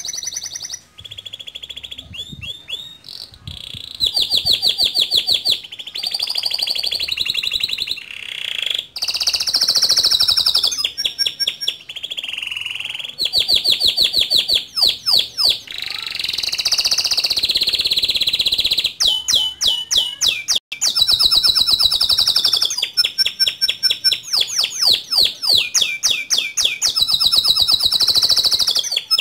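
Male domestic canary singing a long, near-unbroken song of fast rolling trills. Each run of rapid repeated notes switches to a new pitch and speed every second or two, with high sharp notes among them.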